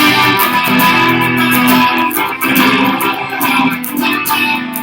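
A guitar strumming chords in a steady rhythm of strokes, with a change of chord about two seconds in.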